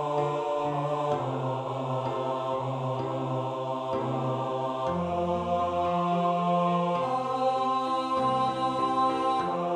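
Four-part mixed-choir arrangement played back as perfectly steady, synthesized choir voices with the bass part brought forward, as in a part-learning track. The notes change in clean steps, moving to longer held chords about halfway through.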